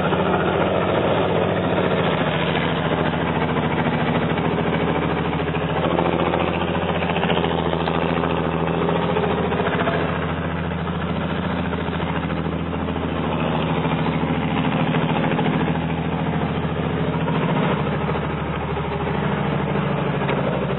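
Heavy truck engine running steadily at an even speed, with little change in pitch.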